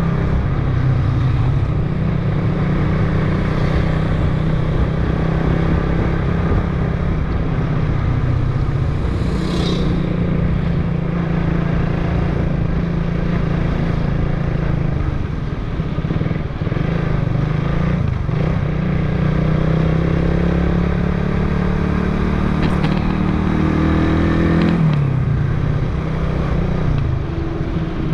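Motorcycle engine running steadily under way, with road and wind noise. About 25 seconds in, the engine note drops as the bike eases off.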